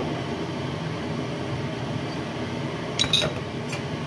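Steady low hiss and hum of a pan of broth heating on the stove, not yet at the boil, with two or three sharp metallic clinks about three seconds in.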